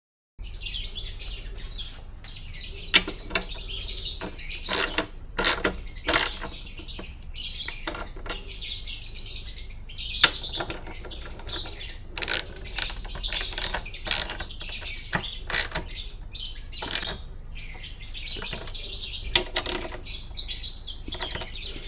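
Ratchet socket wrench clicking and knocking in irregular bursts as motorcycle pannier-rack bolts are tightened, with birds chirping steadily in the background.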